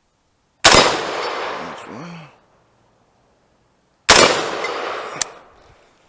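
Two shots from a 20-inch AR-15 rifle, about three and a half seconds apart, each followed by a long echoing decay, with a short sharp click about a second after the second shot.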